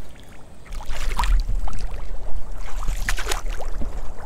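Shallow water sloshing and splashing in irregular surges as someone wades through it, over a low rumble.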